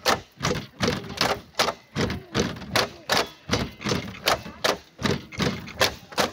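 Bamboo poles of the Mizo Cheraw dance clapped together and knocked against the base poles in a steady rhythm: sharp wooden clacks about three a second, some louder than others.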